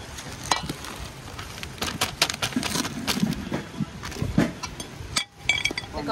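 Irregular clicks and knocks, several close together, with a short pause a little after five seconds.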